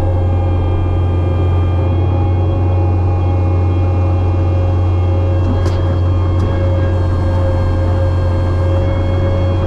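Kubota SVL65-2 compact track loader's diesel engine running steadily at a constant speed, heard from the operator's seat, as the machine backs slowly down off a trailer.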